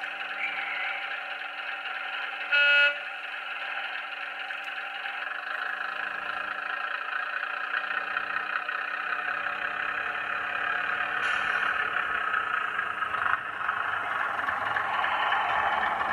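Sound-decoder diesel engine of a model Class 105 diesel multiple unit, played through the model's speaker, running steadily as the unit pulls away, with a short horn blast about three seconds in. The engine sound grows louder in the second half, with rumble from the model running on the track as it passes.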